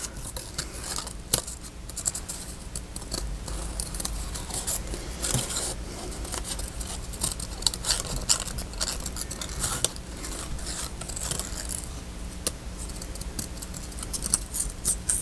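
Larger scissors cutting paper along a winding line in a run of short, irregular snips.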